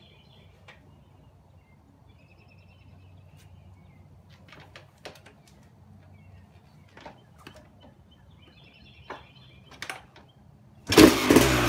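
Quiet with a few faint clicks and faint bird chirps. About 11 s in, a Suzuki RM two-stroke motocross engine, fitted with an FMF expansion chamber and the stock factory silencer, suddenly fires up and runs loudly.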